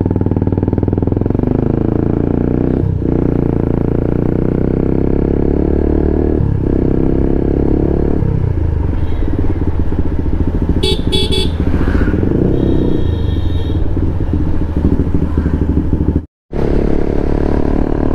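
Motorcycle engine running while riding, its pitch shifting several times as the throttle and gears change. A horn beeps in a few short bursts about eleven seconds in, and the sound cuts out for a moment near the end.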